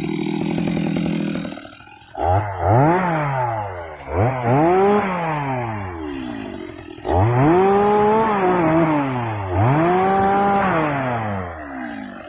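Stihl MS 250 two-stroke chainsaw running, then revved four times; each time the pitch climbs fast and sinks away slowly.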